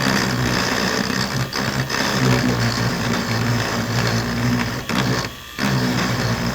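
Dremel rotary tool running with a small-tipped bit, grinding yellowed crusty deposit out of the plastic light-guide tube of an LED daytime-running-light halo. The motor stops briefly about five seconds in and starts again.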